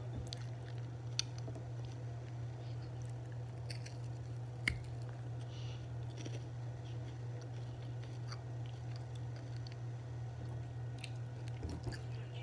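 Quiet chewing of a snack, with a few small mouth clicks and crunches, two of them sharper, over a steady low hum.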